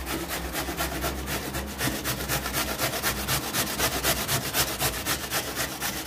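A carrot being grated by hand on a flat grater: a steady run of quick, even rasping strokes, about five a second.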